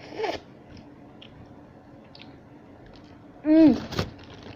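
A man chewing food with faint mouth clicks. About three and a half seconds in he makes a loud, short, falling "mmm"-like sound of enjoyment, followed by a sharp click.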